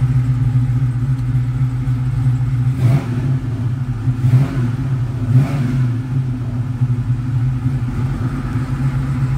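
Chevrolet 502 cubic-inch big-block V8 idling steadily, heard from inside the pickup's cab. Three short throttle blips come near the middle, about three, four and a half and five and a half seconds in.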